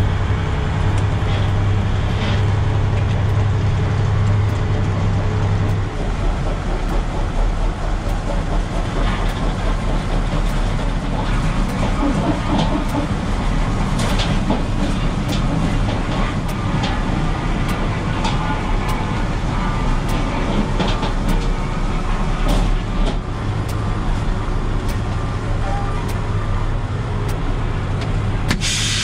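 Heavy truck's diesel engine running, heard from inside the cab, with a steady low hum that shifts about six seconds in and again near the end, over a constant mechanical rumble and scattered clicks.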